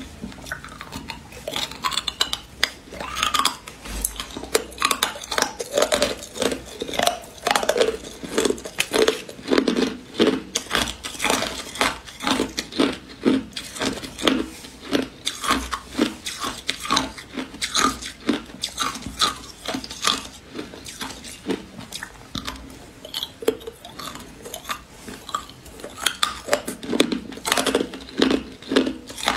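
Hard clear ice being bitten and chewed: a quick, uneven run of sharp crunches and cracks, about two or three a second, going on the whole time.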